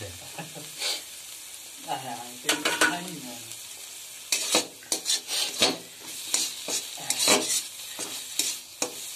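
Flat metal spatula scraping and stirring mushrooms frying in oil in a kadai. A steady sizzle runs under repeated scrapes and clinks of metal on the pan, bunched about two seconds in and again from about four seconds in to near the end.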